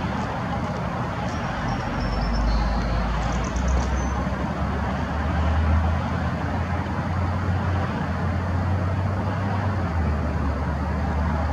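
Steady outdoor rumble with a broad hiss, strongest in a low, unsteady drone, and a few faint high chirps in the first few seconds.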